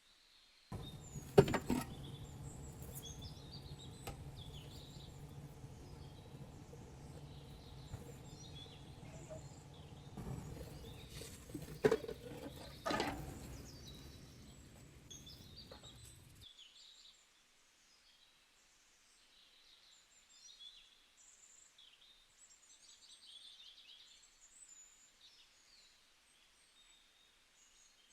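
Birds chirping faintly in the background. For the first half or so, a steady low hum with a few sharp knocks runs under them, then cuts off suddenly, leaving only the faint chirps.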